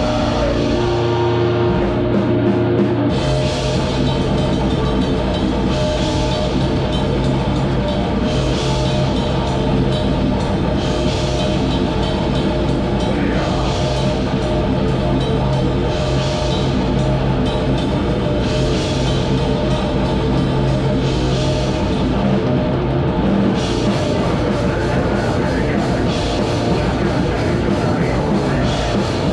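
Heavy metal band playing live: distorted electric guitars, bass and a drum kit with crashing cymbals. Held notes open the passage, and the drums and full band come in about three seconds in.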